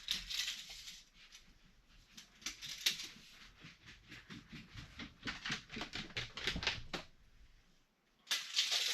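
Irregular run of light clicks and taps from tools and materials being handled during framing work, ending in a louder scraping or rattling burst near the end.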